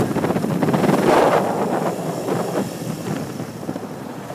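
Wind rushing over the microphone of a moving motorcycle, a dense rushing noise that gets steadily quieter as the bike slows.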